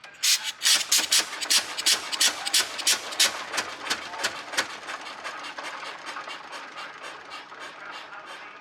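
Victoria oil ploughing engine's horizontal twin-cylinder petrol-paraffin engine running with a sharp, even exhaust beat of about four firing strokes a second. It sets in suddenly just after the start, is loudest for the first few seconds, then eases off somewhat.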